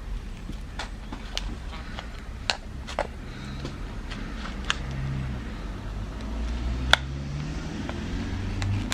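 Scattered sharp clicks and small cracks as tools pry at a shattered phone screen glass, over a steady low hum.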